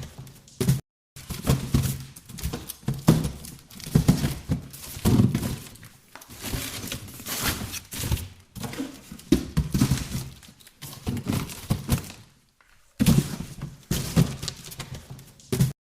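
Boxes being handled, shifted and set down: a run of irregular thunks and knocks with scraping and rustling between them, broken by brief silences about a second in and near the end.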